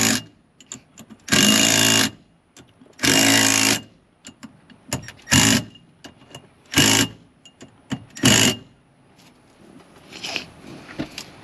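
Power drill-driver running screws into a steering wheel adapter in short bursts of motor whine: three runs of under a second, then three shorter pulses as the screws seat.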